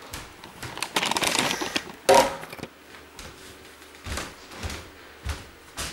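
Belongings being handled and packed into a box: about a second of dense rustling, a sharp loud scrape or thump about two seconds in, then a few light knocks.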